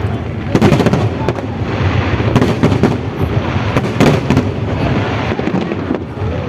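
Fireworks show going off overhead: a rapid run of bangs and crackles, with several louder blasts about half a second, two and a half and four seconds in.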